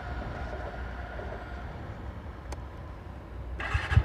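A TVS NTorq 125's single-cylinder four-stroke fuel-injected engine started near the end, catching and running with an even pulsing beat. Before that there is only a faint low rumble and a single click about two and a half seconds in.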